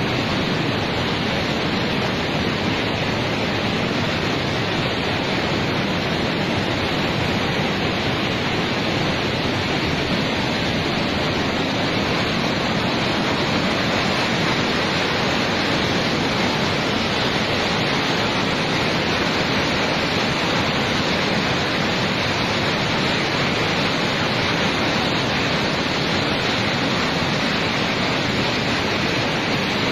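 Monsoon floodwater of a river in spate rushing through rapids: a steady, unbroken rush of turbulent water.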